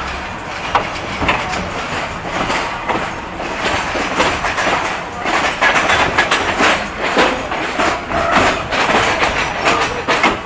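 Passenger train rolling slowly through station yard tracks, heard beside an open carriage window: the wheels clack irregularly over rail joints and switches, more often and louder from about halfway through.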